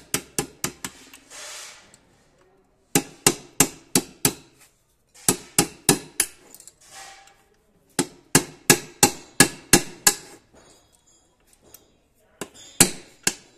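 Hammer striking a thin steel rod held against the check nut on a power tiller gearbox shaft, driving the nut tight: sharp metal-on-metal taps in quick runs of five to nine, about four a second, with short pauses between runs.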